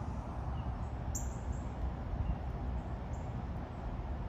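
Outdoor ambience: a steady low rumble with a few short, high chirps, a pair about a second in and another pair around three seconds.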